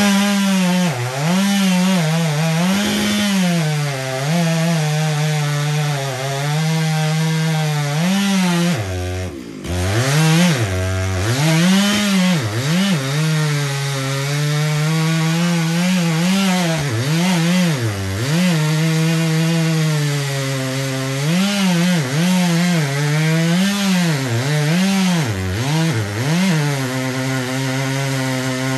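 Gas chainsaw cutting wood, its engine revving high and bogging down over and over as the chain bites in and frees. It drops briefly toward idle about nine seconds in, then goes straight back to cutting.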